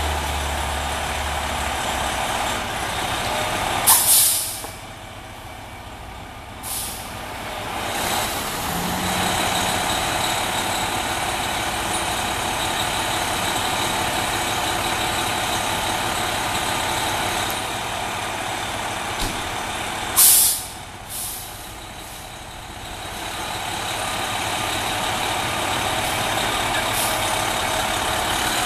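Fire engine's diesel engine running steadily, with two loud, sudden air-brake hisses about sixteen seconds apart, each followed by a shorter puff.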